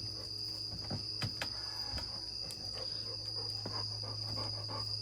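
Insects, crickets by the sound of it, chirring steadily in one continuous high tone, over a low steady hum and a few scattered faint clicks.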